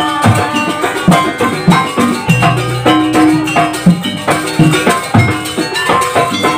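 Jaranan gamelan music: drum strokes over ringing gong and metallophone tones, with a deep gong swell about two and a half seconds in.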